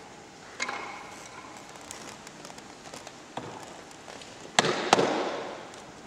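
Hand hammer blows on a metal tool set against a block of lapis specularis (selenite gypsum) as it is worked: a sharp knock with a short metallic ring under a second in, a lighter knock a few seconds later, then the two loudest blows close together near five seconds that ring and die away.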